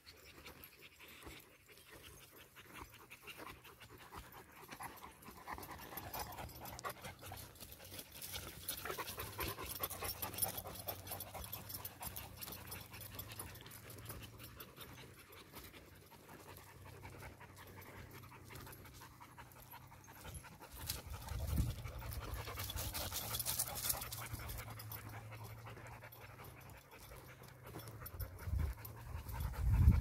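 Rottweiler panting steadily as it walks, louder about two-thirds of the way in and again near the end as the dog comes close.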